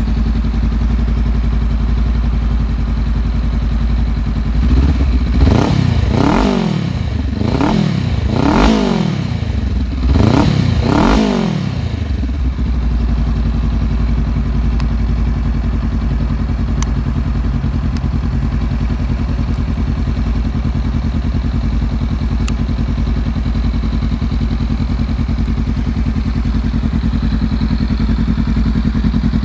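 Honda CMX500 Rebel's parallel-twin engine idling in neutral. Several quick throttle blips about five seconds in each rise and fall in pitch, then it settles back to a steady idle.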